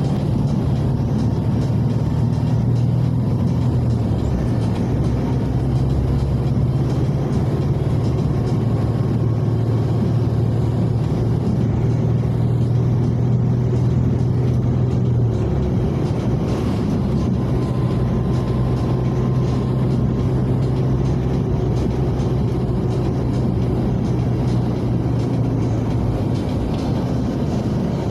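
Car engine and road noise while driving: a steady low drone that drops briefly about halfway through, then returns.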